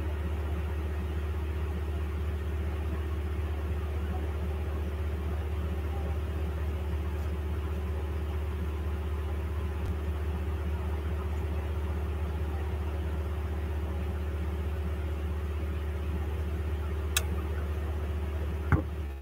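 A steady low machine hum with a few faint steady tones above it, unchanging throughout. Near the end come two sharp clicks, the second the louder.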